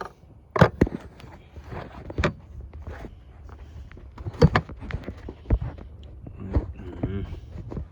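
Handling noise of a phone being propped up and repositioned: irregular knocks and rubbing, with several sharp knocks, over a low steady hum.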